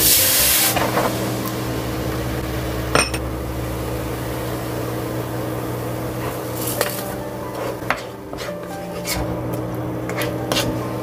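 Sauce ingredients poured from small ceramic bowls into a nonstick wok: soy sauce and rice wine splashing in, then sugar, with a few sharp clinks of bowls and a wooden spatula against the pan, under steady low tones.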